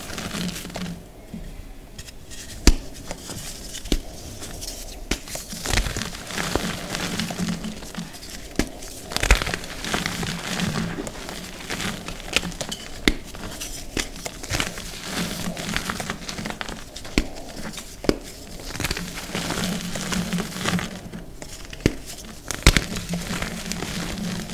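Dyed reformed gym chalk squeezed and crumbled by hand: a continuous dry, crunchy crackle of powder and clumps being crushed, with frequent sharp snaps as pieces break up.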